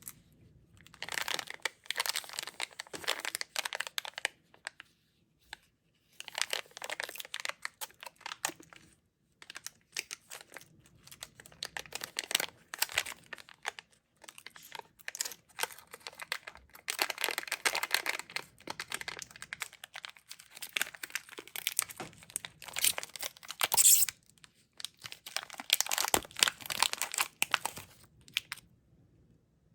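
Plastic candy packaging crinkling and being torn open in repeated bursts of a few seconds each, handled up close, stopping near the end.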